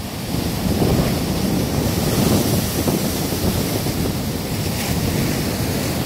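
Large ocean waves breaking over a rocky shore, whitewater surging across the rocks in a continuous rushing wash with a deep rumble that swells about half a second in. Wind and spray buffet the microphone.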